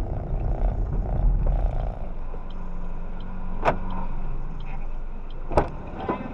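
Inside a car's cabin: engine and road rumble as the car slows to a stop, then the quieter hum of the engine idling. A steady hum runs for about two seconds, and two sharp clicks come about two seconds apart.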